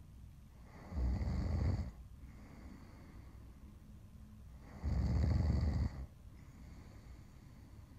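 A woman snoring in her sleep: two loud, deep snores about four seconds apart, each lasting about a second, with quieter breathing between them.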